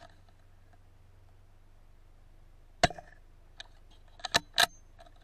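A single shot from a CZ 457 bolt-action rifle in .17 HMR rimfire, about three seconds in. It is followed over a second later by a few sharp clicks, the loudest two coming close together near the end.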